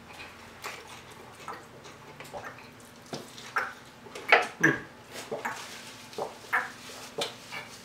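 Eating and drinking mouth sounds: gulps from a bottled drink and chewing on fried chicken, a scatter of irregular wet smacks and clicks, loudest about four and a half seconds in.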